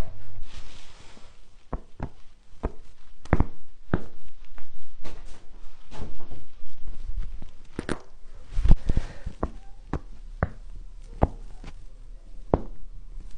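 A series of sharp cracks and pops from the joints of the lower spine, a dozen or so at uneven spacing, with soft rustling between them.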